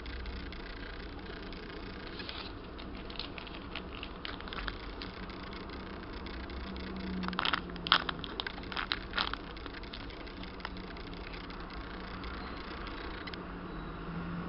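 A homemade squishy being squeezed and handled, its surface crackling in short bursts of clicks, loudest in a cluster just past the middle, over a steady low hum.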